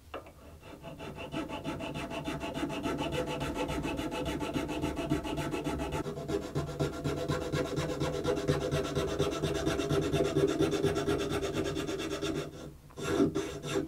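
Hand files rasping in rapid back-and-forth strokes on a cello's ebony nut: first a flat file shaping its top, then a thin file cutting the string grooves. The strokes change character about halfway through and stop briefly near the end.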